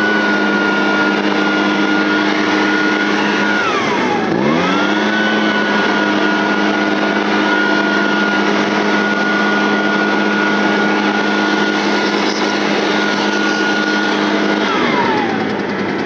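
Echo PB-580T backpack leaf blower's two-stroke engine running at high throttle while blowing, with the pitch falling off and coming back up about four seconds in, then dropping toward idle near the end as the throttle is let off.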